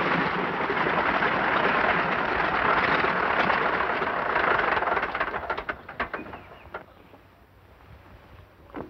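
Single-engine monoplane's radial engine and propeller running as the plane taxis on grass, a loud even drone. About five seconds in the engine is cut and the noise dies away over a couple of seconds, with a few short ticks as it stops.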